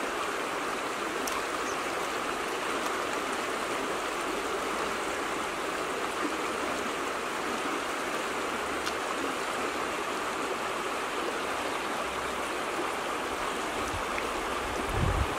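Shallow river flowing over rocks: a steady rushing of water, with a brief low rumble near the end.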